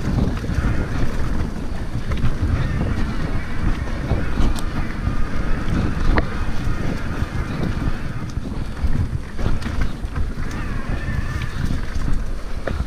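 Wind rumbling over a helmet-mounted action camera's microphone, uneven and strongest in the low end. A few sharp clicks or knocks sound about four and a half and six seconds in.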